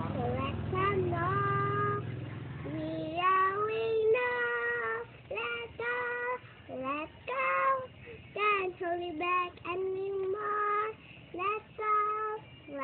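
A young girl singing unaccompanied in phrases of held notes with short breaks between them, with a low rumble under the first few seconds.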